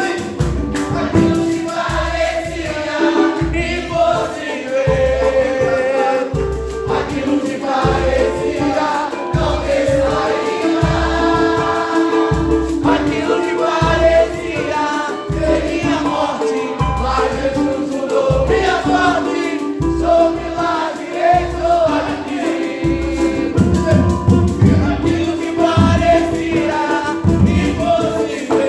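Gospel worship music: several voices singing together over a band with a steady pulsing bass beat.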